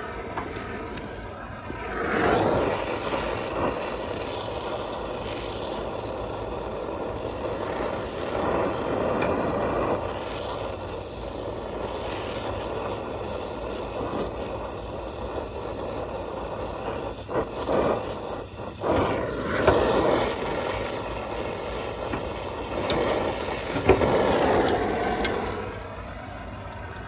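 Brazing torch flame hissing steadily on a copper refrigerant line's brazed joint, heating it so the joint can be unsweated. It starts about two seconds in and stops shortly before the end, with a few sharp clicks and clanks in the second half as the tube is worked loose.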